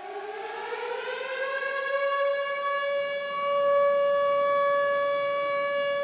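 Air-raid siren winding up: one wailing tone rises in pitch over about the first two seconds, then holds steady and grows louder.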